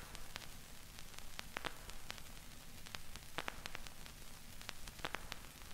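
Faint crackling static: a steady hiss over a low rumble, dotted with irregular sharp clicks.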